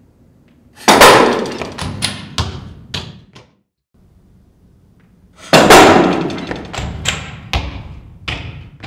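Basketball cannon firing with a sudden loud bang, then a run of knocks as the ball strikes and bounces, dying away over about two seconds. The same shot-and-bounces sequence comes again about five seconds in.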